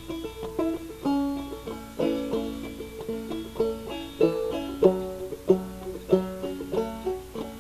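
Banjo music: a plucked banjo playing a quick, steady run of notes.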